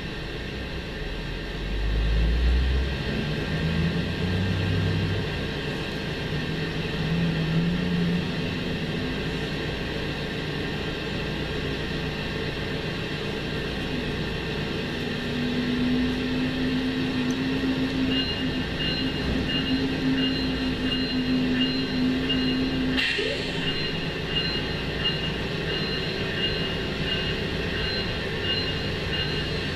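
Amtrak GE Genesis diesel locomotive running at the platform with a steady low engine hum; the low tones shift in the first few seconds. Two thin high steady tones join about two-thirds through, and there is one short sharp burst of noise shortly after.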